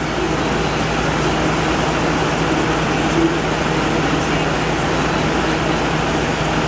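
Window air conditioner running on high: a steady rush of fan air over a constant low compressor hum, the compressor running continuously without cycling off.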